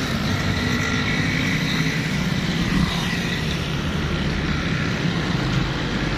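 Steady drone of passing road traffic, mostly motorcycle engines, with a faint high whine running through it.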